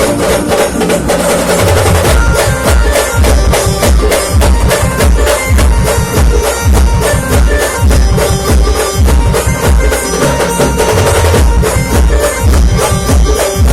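Marathi village brass band playing an instrumental passage of a song: rapid, steady drum beats under a held melody line from the horns.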